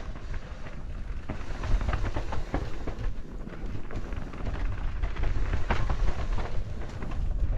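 Mountain bike riding down a dirt singletrack: wind buffets the microphone under a steady low rumble of tyres on dirt, with scattered sharp rattles and knocks from the bike over roots and rocks.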